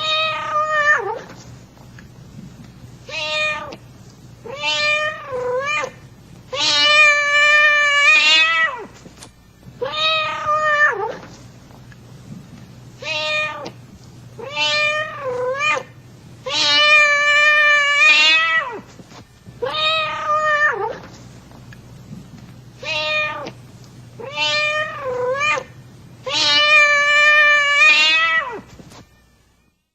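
Domestic cat meowing over and over, about a dozen meows a second or two apart. Short meows mix with longer drawn-out ones whose pitch wavers, and the same run of meows repeats about every ten seconds.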